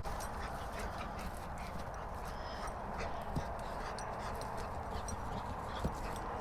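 A horse moving about on open ground, its hoofbeats faint and irregular against a steady background hiss, with a few small knocks.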